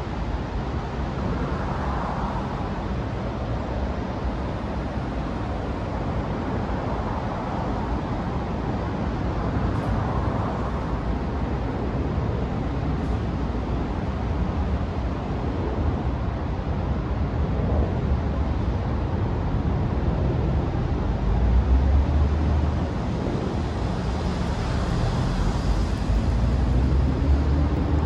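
Steady outdoor background noise with a low rumble that swells briefly about three-quarters of the way through.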